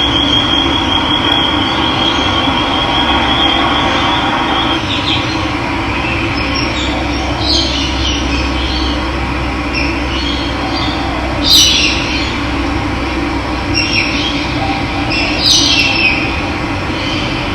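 Steady rush of running water. Birds call over it: a thin high held note for the first few seconds, then short chirps a few times.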